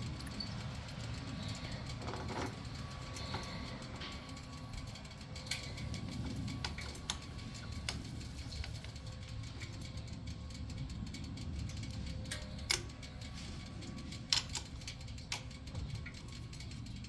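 Scattered sharp metallic clicks and knocks of hand tools and a motorcycle's footboard mount being handled and adjusted, over a steady low background rumble.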